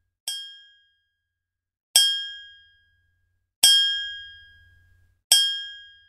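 Small bell's high-pitched 'ting', struck four times, each a sharp strike that rings and fades away within about a second. The strikes come roughly every one and a half to two seconds, and the first is quieter than the rest.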